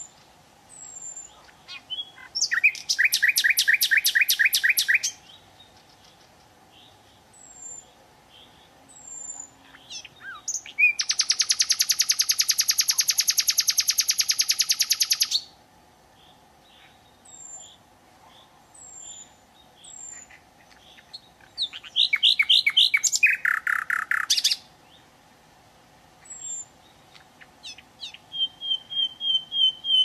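A songbird singing loud phrases of rapidly repeated notes, the middle phrase a long, very fast trill of about four seconds. Short high chips sound between the phrases over a faint steady hum.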